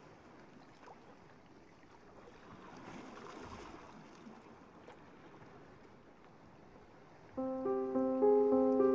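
Faint steady rustling hiss from hands working crochet thread, then background keyboard music with held, stepping notes starts about seven seconds in and is much louder.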